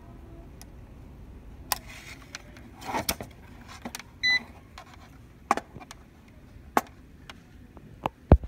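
Scattered sharp clicks and taps of multimeter probes and the meter being handled against a scanner's flat ribbon cable contacts, the loudest near the end. About four seconds in, the multimeter gives one short, high beep.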